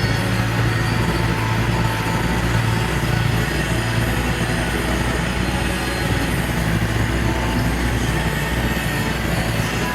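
Off-road 4x4's engine running steadily at low revs while driving, a continuous low drone.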